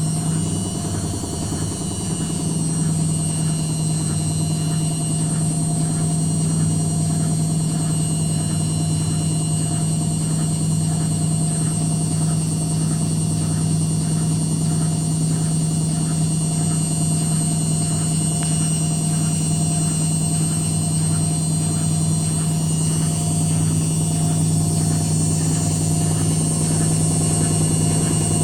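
Indesit WITL 106 washing machine spinning: the motor reaches full spin speed about a second or two in and holds it with a steady hum and high whine. A faint regular pulse runs under it, the drum knocking during the spin.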